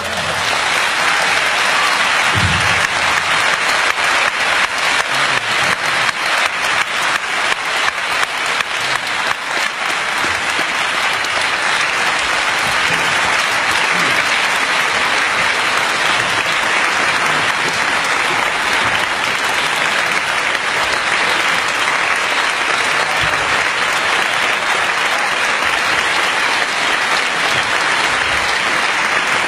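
Concert audience applauding, the clapping breaking out all at once and continuing as a steady, dense ovation.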